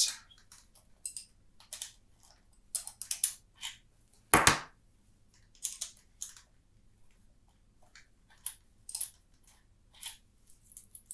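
Scattered small metallic clicks and clinks of hands and a tool loosening and taking off the screw clamps on an office chair's pneumatic lift cylinder rod, with one sharper, louder click about four and a half seconds in.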